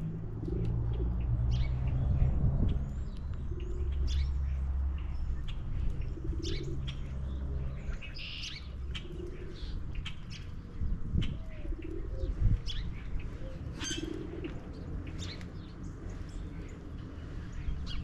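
Backyard birds chirping with short high calls throughout, over the repeated low cooing of a mourning dove every couple of seconds, with a steady low rumble underneath.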